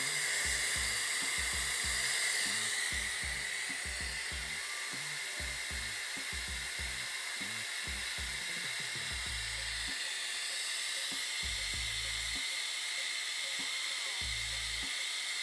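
Air-powered vacuum brake bleeder hissing steadily as it runs, drawing brake fluid through the open caliper bleeder valve to bleed a motorcycle's front brake.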